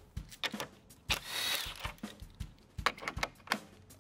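Cordless drill-driver with a 10 mm socket spinning out a grille nut in a short whir about a second in, among scattered light clicks and taps of the tool and socket on the plastic trim.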